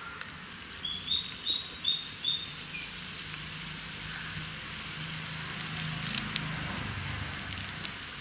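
Chana dal and mustard seeds sizzling in hot oil in an aluminium pot over a wood fire, a steady hiss with scattered sharp pops. About a second in comes a run of five short high chirps.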